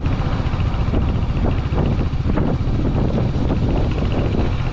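Motorcycle engine running steadily while riding, with a regular pulsing rumble, and wind rushing over the microphone.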